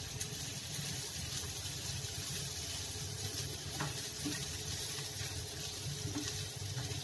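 Diced boiled raw banana, onion and chillies sizzling gently in a nonstick frying pan while stirred with a wooden spatula, with a few light taps and scrapes of the spatula.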